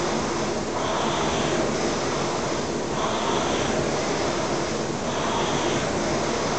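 Concept2 rowing machine's fan flywheel whooshing steadily, surging with each stroke about every two seconds.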